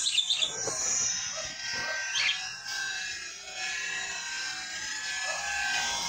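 A small flock of budgerigars chattering, with a couple of sharper chirps near the start and about two seconds in.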